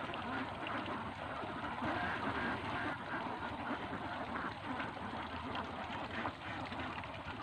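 A flock of five-month-old domestic ducks quacking, many calls overlapping in a constant chorus.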